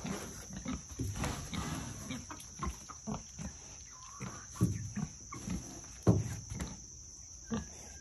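Pigs grunting and snuffling, short low grunts at irregular intervals, with a few sharp clicks.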